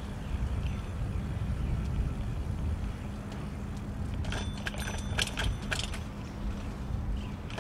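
Shared bicycle riding along with a steady low rumble, and a quick run of rattling clicks between about four and six seconds in.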